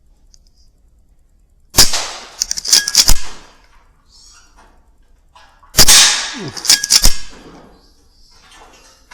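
Two shots from a Weihrauch HW100 .22 pre-charged air rifle, about four seconds apart. Each sharp crack is followed about a second later by a quick run of sharp metallic clicks as the side-lever action is cycled for the next pellet.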